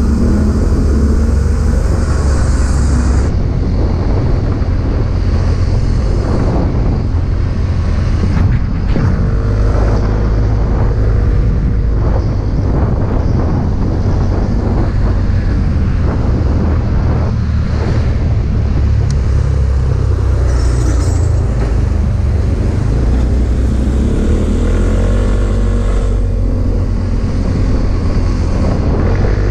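Motorcycle on the move: a steady rush of riding wind on the microphone over the engine's drone, with the engine pitch rising and falling a few times.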